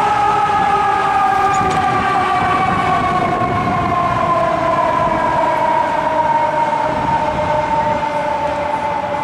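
Fire engine siren sounding one long wail that falls slowly and steadily in pitch, the way a mechanical siren winds down.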